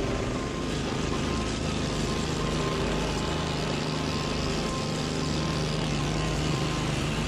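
Small petrol engines running steadily: the stand-on trimmer carrier's engine with a handheld string trimmer working alongside it.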